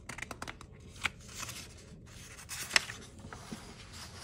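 Paper page of a picture book being turned: rustling with a few sharp crackles, the loudest a little under three seconds in.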